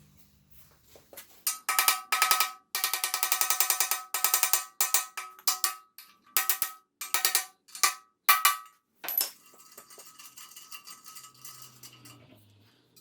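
Rapid metallic clicking in several bursts with short pauses, each burst ringing with the same metal tones, like a ratchet or tool working against steel parts.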